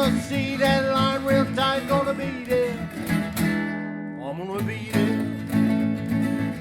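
Country song with acoustic guitar and a singing voice, the voice holding long notes with vibrato and sliding up into a new phrase about four seconds in.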